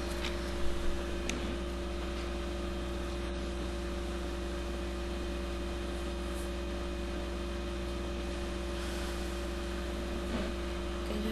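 Steady electrical hum of a few fixed tones over a low drone and faint hiss, with a couple of faint clicks about a second in.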